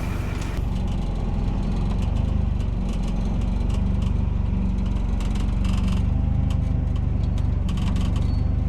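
Vehicle engine running steadily, a low even hum with a few faint clicks.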